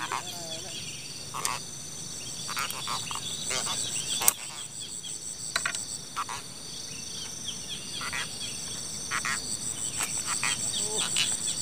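Steady high-pitched chorus of crickets and other insects. Over it come scattered short clicks and brief croaking pulses, with one sharp click about four seconds in.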